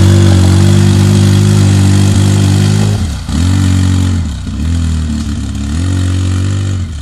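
Polaris RZR side-by-side's engine revving hard as it churns through a mud rut. It is held at high revs for about three seconds, then the throttle is lifted and reopened in three shorter pulses.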